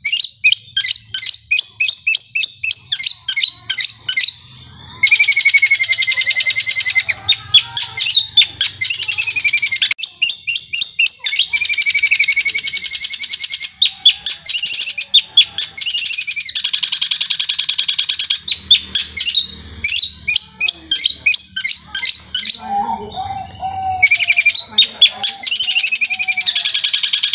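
Long-tailed shrike (cendet) singing fast and without pause: quick runs of sharp repeated notes, several a second, alternating with dense, buzzy trills a second or two long, a rolling song likened to a sewing machine.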